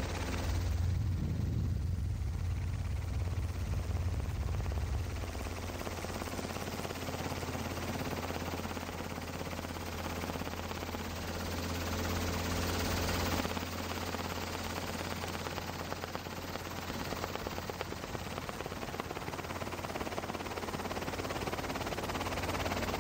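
Helicopter rotor and engine noise heard from on board: a steady, rapid low chop that runs on unchanged.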